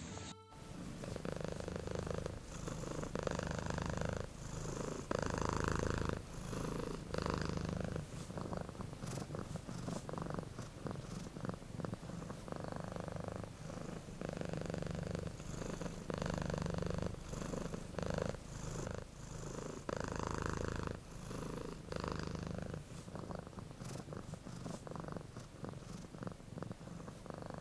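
Domestic cat purring close to the microphone, swelling and easing in a steady cycle of about a second or so with each breath in and out.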